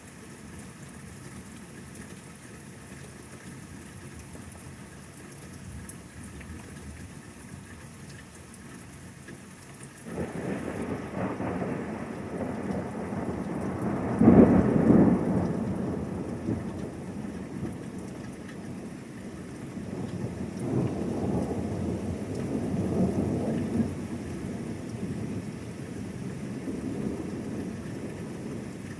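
Steady rain, then about a third of the way in thunder breaks in suddenly and rumbles, loudest a few seconds later. A second long rumble rolls through later and fades back into the rain.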